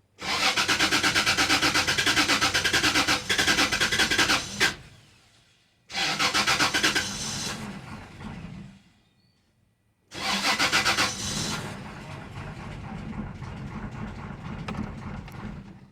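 2004 Toyota Tacoma engine cranked over by the starter three times, a fast even chugging each time, and stumbling as if trying to catch but not starting: a no-start condition, shown here with a relay unplugged. The third attempt runs on as a rougher, uneven sound for a few seconds before fading.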